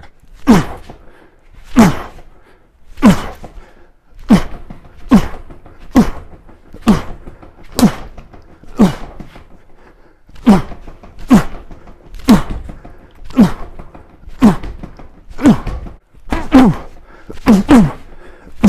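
Bare fists punching a freestanding mannequin-style training dummy, about one hard thud a second. Each hit is followed by a short tone that drops in pitch, and near the end two hits come in quick succession.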